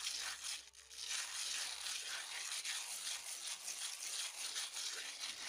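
Hand-sanding a dried cement vase: quick back-and-forth scratchy rubbing of sandpaper over the rough cement, knocking off loose grains of sand, with a brief pause about a second in.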